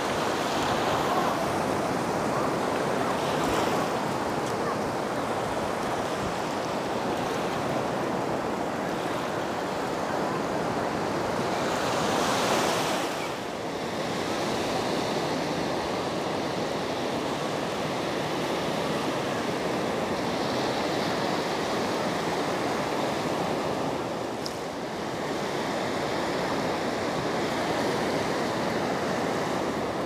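Small sea waves breaking and washing up a flat sandy beach in a steady rush, one surge a little louder about twelve seconds in.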